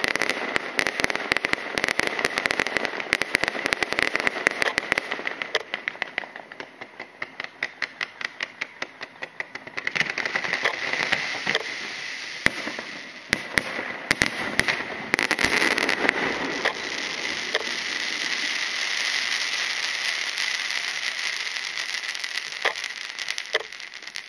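Fireworks going off. A rapid stream of sharp cracks and pops thins out to separate pops, and about ten seconds in a steady hissing rush with crackles running through it takes over.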